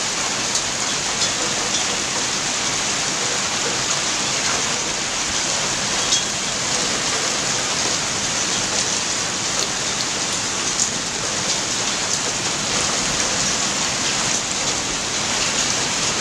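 Hail pelting down in a dense, steady hiss, with scattered sharp clicks of hailstones striking hard surfaces.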